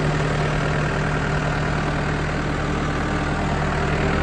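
New Holland B75B backhoe loader's turbo diesel engine idling steadily, with an even, unchanging low note.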